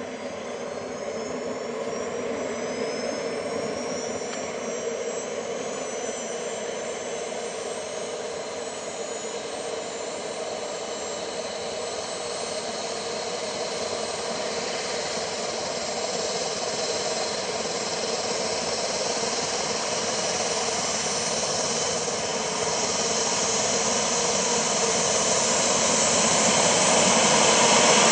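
Model jet turbines (Booster 160+) in a 1:4 scale RC F-16 starting up. A high whine rises in pitch over the first few seconds, then a steady rushing turbine noise grows gradually louder.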